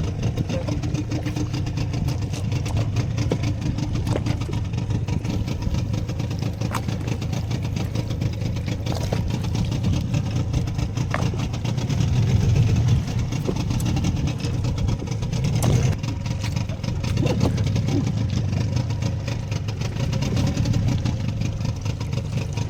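Fishing boat's engine running steadily with a low rumble, with a few faint knocks over it.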